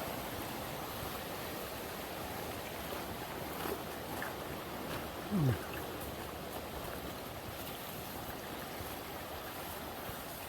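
A river running high after heavy rain, its water rushing steadily. About five seconds in comes a brief low sound that falls in pitch.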